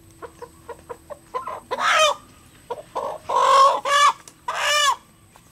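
A chicken clucking in a quick run of short clucks, then giving several loud squawks as it is grabbed and pulled out of a bamboo cage: alarm calls at being caught and handled.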